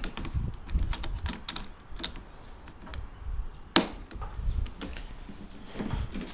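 Irregular clicks and knocks of plastic lawn mower parts being handled and fitted together during assembly, with one sharper click about four seconds in.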